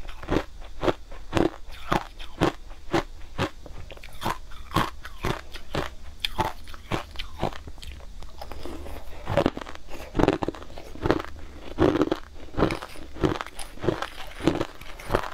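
Purple crushed ice crunching as it is bitten and chewed, in quick repeated crunches of about two to three a second.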